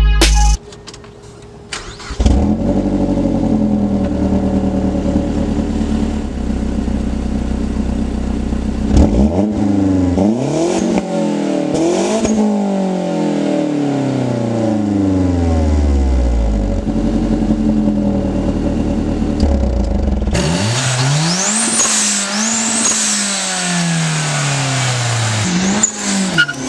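Tuned 2013 Mazdaspeed 3's turbocharged four-cylinder engine. It comes in about two seconds in and holds a steady idle, then is revved several times in the middle, the pitch rising and falling. Near the end the sound turns hissier, with more rises and falls in pitch.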